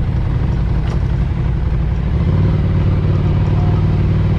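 Ducati Scrambler Cafe Racer's air-cooled V-twin engine running steadily under way, getting a little louder about halfway through.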